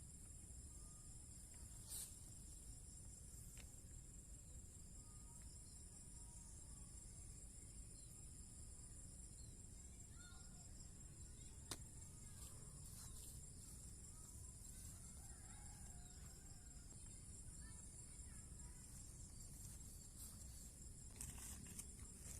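Faint steady high-pitched chorus of insects in swamp forest, with a few faint chirping calls in the middle and a couple of soft clicks.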